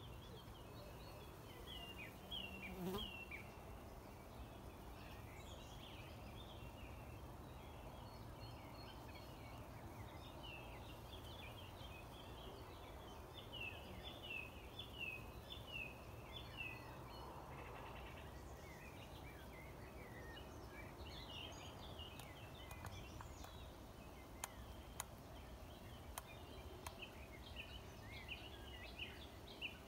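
Faint outdoor garden sound: small birds chirp over and over in short, high, falling notes, and an insect buzzes low. A few sharp clicks come near the end.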